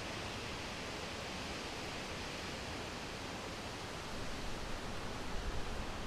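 Wind blowing, a steady even rush, with low gusty rumbles on the microphone near the end.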